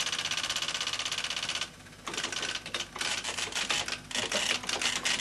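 Sagem TX20 electronic teleprinter punching a message onto paper tape as it is typed. It starts with a fast, even rattle for about a second and a half. After a brief pause this becomes an irregular run of rapid clicks as the keys are struck.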